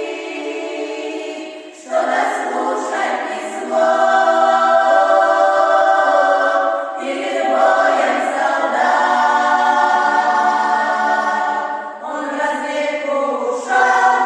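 Choir singing in long held chords, swelling louder about four seconds in, with short breaths between phrases.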